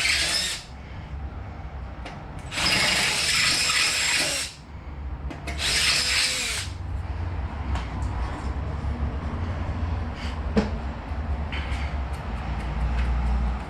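Power drill boring into metal, widening a hole with a larger bit. It runs in several short bursts, then in a steadier, lower-pitched run through the second half.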